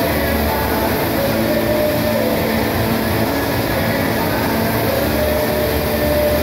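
Steady, even roar of workshop air equipment during spray-painting: a large drum fan and the compressed air feeding a paint spray gun.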